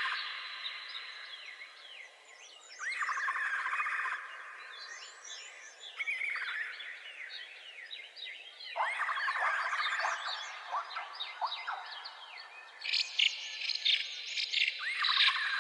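Birds calling: a dense chorus of short chirps and whistles, with a longer rattling call, rising at its start, that comes three times, about six seconds apart.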